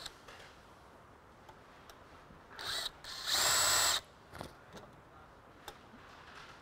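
Cordless drill run in two short bursts, a brief one about two and a half seconds in and a louder one of under a second just after, drilling out a loose, spinning pop rivet.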